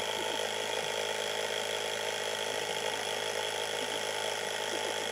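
Small portable electric air compressor (tyre inflator) running steadily, pumping air into an ATV tyre.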